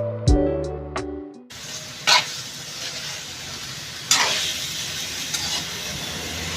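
Chicken pieces sizzling as they sauté in hot oil with garlic and onion, with a couple of sharper scrapes from a spatula stirring the pan, about two and four seconds in. Background music plays at the start and cuts off suddenly about a second and a half in.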